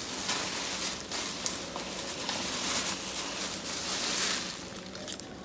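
Thin plastic shopping bag rustling and crinkling as hands rummage inside it.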